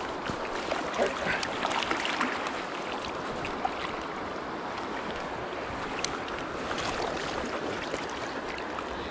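Shallow stream water rushing steadily, with scattered splashes, thickest about a second in and again near the end, as a hooked trout is brought in and scooped into a landing net.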